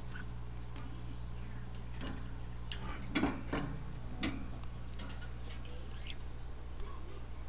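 Small clicks and taps from a green-cheeked conure moving about her cage, with a short run of louder clicks and knocks about two to four seconds in, over a steady low hum.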